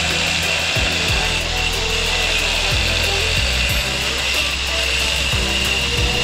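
Handheld angle grinder with a cut-off disc cutting through the steel elbow of a scooter's stock exhaust pipe: a steady, high whine over grinding noise.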